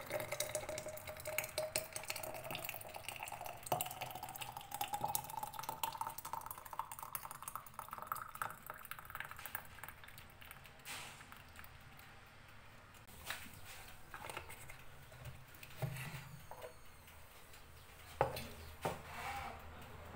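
Thick orange jam pouring from a stainless steel pot into a glass jar, its pitch rising steadily as the jar fills over about nine seconds. After that come a few sharp knocks and clinks of the pot and glass jars being handled.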